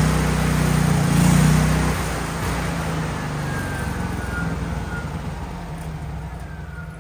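Gas engine of a Miller Bobcat 250 engine-driven welder running, its sound swelling and easing in pulses at first, then settling to a lower, quieter run about two seconds in and fading toward the end.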